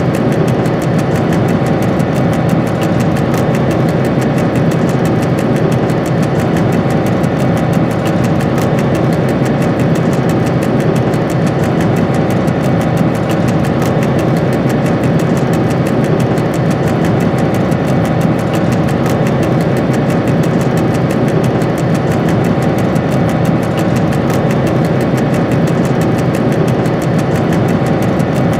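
VR Class Dr12 diesel locomotive's engine running with a steady drone, heard from inside the driver's cab while the locomotive is moving.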